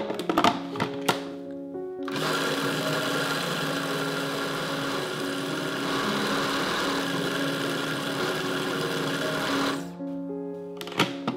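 Food processor running, blending thick spinach-avocado hummus until smooth. Its motor starts about two seconds in and cuts off sharply near the end, after a few clicks at the start.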